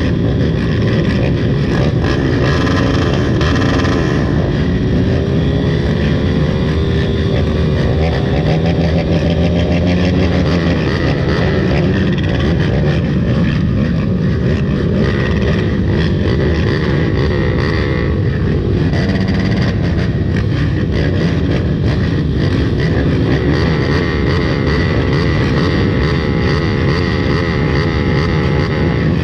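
Off-road dirt bike engines running, several at once, with pitch rising and falling as the throttles are worked.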